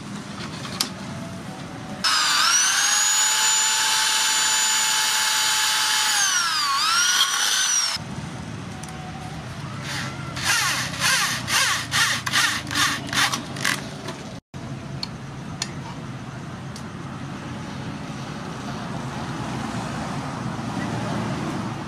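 Corded electric drill boring through a steel mounting plate into a wooden block: the motor spins up, runs steadily for about six seconds, dips and stops. A few seconds later, a quick run of about ten short pulses as the drill's trigger is tapped to drive in a screw.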